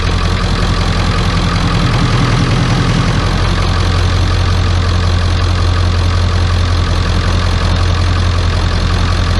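1995 Ford F-250's 7.3-litre Powerstroke V8 turbo diesel idling steadily, running again after a new glow plug relay cured its no-start.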